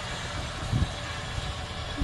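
Steam train pulling away from the station: a steady low rumble with hiss, and one brief thump a little under a second in.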